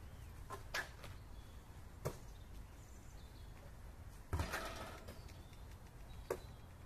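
A basketball striking the hoop, the asphalt court and hands during shooting practice: a handful of sharp knocks, the loudest about four and a half seconds in, trailing off briefly, over a steady low rumble.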